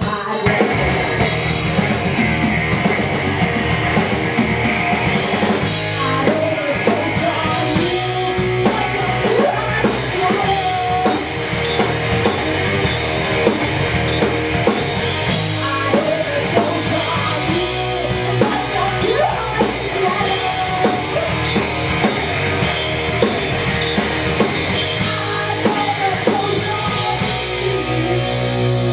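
Live rock band playing an instrumental break: electric guitar, bass guitar and drum kit, with a lead line of bending notes coming in about six seconds in.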